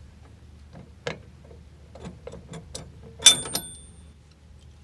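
A metal devil's claw being released from a yacht's anchor chain: a few light metallic clicks and ticks, then a sharp metal clank with a brief high ring about three seconds in as the claw comes off the chain.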